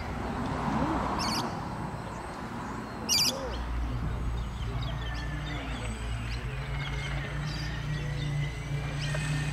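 Small birds chirping a couple of times, then a steady low motor drone with a faint whine from a radio-controlled model catamaran cabin cruiser running fast across the water.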